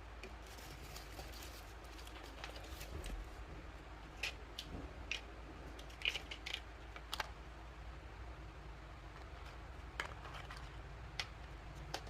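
Small plastic toy kitchen pieces being handled: a few seconds of light scratchy rustling, then scattered sharp plastic clicks and taps, about a dozen spread unevenly.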